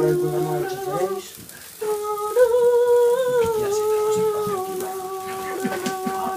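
A person humming long, held notes, with a short break about a second and a half in, then one long note that steps down in pitch.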